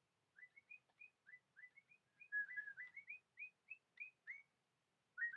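Electronic toy bird chirping: a quick string of short whistled chirps, two or three a second, with a brief pause near the end before the chirping starts again.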